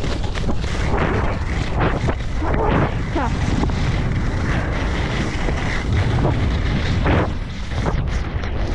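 Wind buffeting the microphone of a moving skier, with skis scraping and hissing over hard-packed groomed snow in repeated short swishes as the edges bite through turns.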